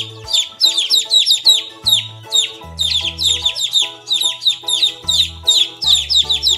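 Baby chicks peeping over background music: rapid clusters of short, high cheeps, each falling in pitch.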